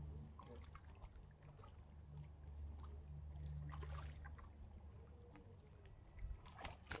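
Low wind rumble with small waves lapping at a rocky shore. About four seconds in, a hooked crappie splashes at the surface as it is reeled in, and a few sharp clicks come near the end as it is lifted out.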